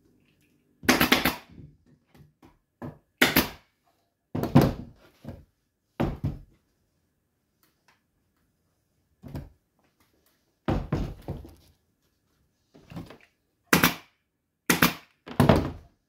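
About ten irregular knocks and thuds as a wooden chair frame with its upholstered cushion is turned and set against the workbench, each one short and dying away quickly.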